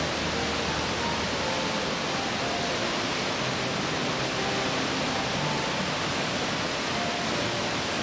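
River water rushing over rock ledges in shallow cascades and rapids: a steady, even rush of white water.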